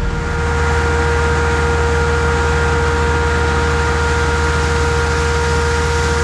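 A farm vehicle's engine running at a steady speed: a low drone with a steady, even whine above it.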